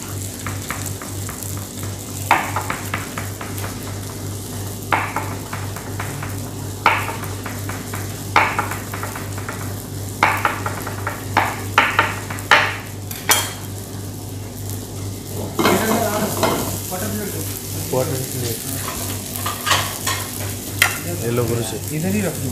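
Chef's knife chopping spring onions on a plastic cutting board in short runs of quick taps, over a steady sizzle of food frying in a pan and a steady low hum.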